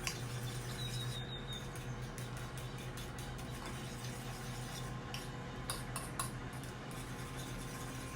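Utensil stirring an egg mixture in a bowl, with a run of light clicks and clinks against the bowl and a few sharper taps about six seconds in.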